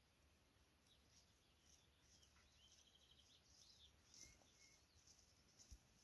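Near silence with faint distant birdsong: short high chirps and a brief rapid trill from the woodland.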